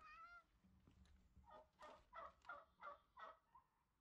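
Domestic turkey hen calling faintly: a short rising call at the start, then a quick run of about six yelps about a second and a half in.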